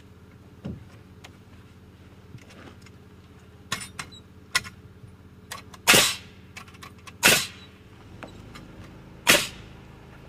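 Pneumatic framing nailer firing three times, about a second and two seconds apart, driving nails as rafters are fastened, with a few lighter knocks of lumber being handled before the shots.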